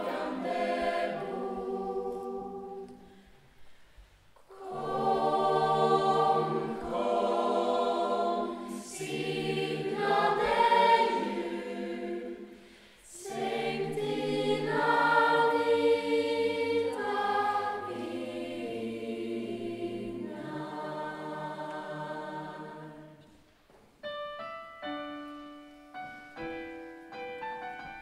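Female Lucia choir singing in long phrases with two brief breaks; the singing fades out about 23 seconds in. A second later a piano starts playing a slow introduction of single notes.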